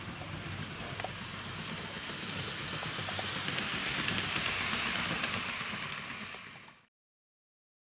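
N gauge model trains running on the track: a steady hissing rattle with many light clicks from the wheels. It grows louder as a train passes close about four seconds in, then fades and stops about a second before the end.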